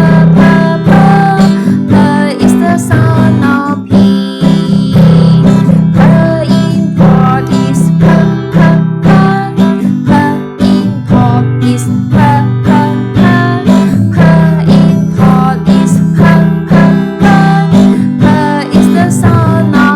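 Acoustic guitar strummed to a steady beat with a melody line over it: the backing music of a children's phonics song.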